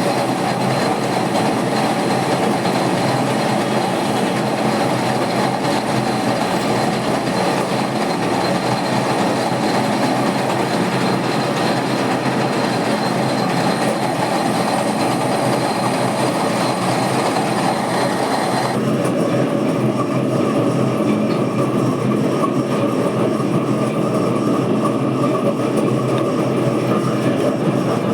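Machine tool running steadily with a dense mechanical rumble and clatter; the high-pitched part of the noise cuts out suddenly about two-thirds of the way through while the running continues.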